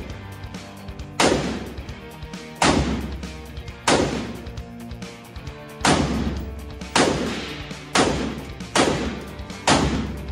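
AR-15-style rifle fired in single shots, eight in all at an uneven pace of roughly one a second, each shot ringing on briefly in the enclosed range. Background music plays underneath.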